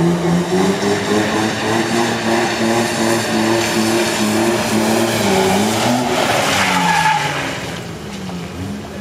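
SUV engine revving hard, its pitch rising and falling, while the tyres spin and slide through water on a wet surface. A short tyre squeal comes about seven seconds in, then the engine grows quieter as the SUV drives away.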